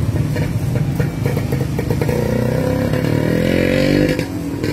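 Motor vehicle engine running, its pitch rising as it revs up from about two seconds in, then dropping away shortly before the end. A few light clicks come in the first second or so.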